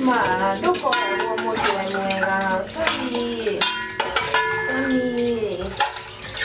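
Metal pans, plates and cutlery clinking and clattering in a sink as dishes are washed by hand, with music and singing going on behind.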